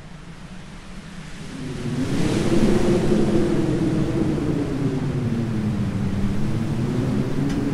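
Low cinematic rumble that swells up about two seconds in and holds, its low tones slowly wavering up and down in pitch.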